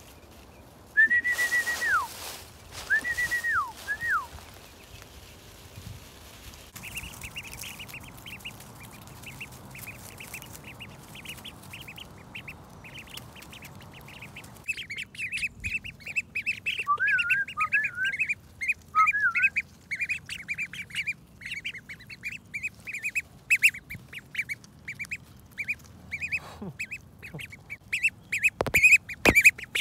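A brood of Indian runner ducklings peeping: many short, high, rapid peeps in a busy chorus. Near the start come three longer, louder calls that hold a pitch and then drop sharply.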